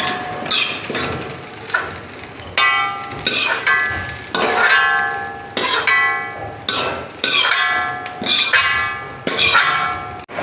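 A spoon scraping and knocking against metal cookware about a dozen times, each knock leaving a short ringing tone, as fried grated coconut is scooped out of the pan into a bowl.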